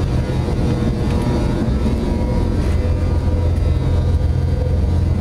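Steady low rumble of factory machinery, with faint steady humming tones over it.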